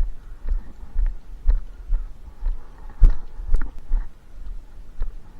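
Walking footsteps heard as dull thuds about twice a second through a body-worn action camera, with light clicks and rattles of gear; one thud about three seconds in is louder than the rest.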